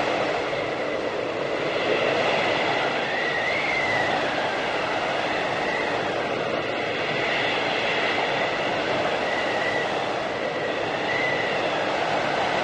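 Blizzard wind in a whiteout: a steady rushing noise with a thin high whistle that briefly rises and falls every couple of seconds.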